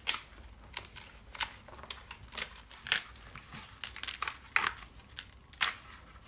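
Dry, brittle skin being cracked and peeled off dried luffa gourds by hand: an irregular series of crackles and crinkles.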